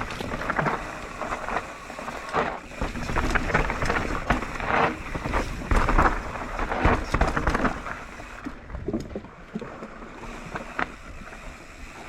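Kona Process 153 full-suspension mountain bike riding down a dirt trail: tyre rumble over the ground with irregular knocks and rattles from the bike, and wind on the microphone. It gets quieter about eight seconds in.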